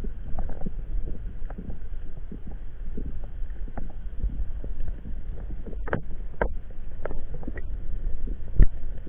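Underwater sound picked up by a camera in the water: a steady, muffled low rumble of moving water with scattered short clicks and knocks, the loudest a sharp thump near the end.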